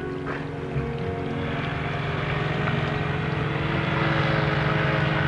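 Outboard motor on an inflatable rubber raft running at speed, with the rush of the hull over the water, growing steadily louder as it comes closer.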